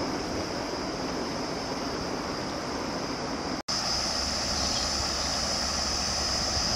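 Steady rush of water spilling over a small stone weir, with a steady high insect drone above it. The sound drops out for an instant a little over halfway through, then comes back slightly louder.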